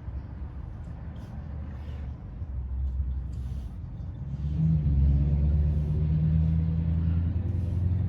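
Car engine idling with a steady low rumble, growing louder about halfway through and then holding level.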